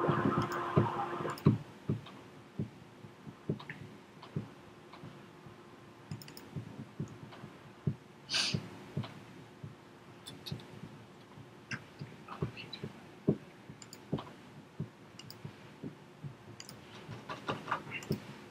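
Irregular clicks of a computer mouse and keyboard in a small room, with a quicker run of key clicks near the end. A louder, noisier clatter fills the first second and a half.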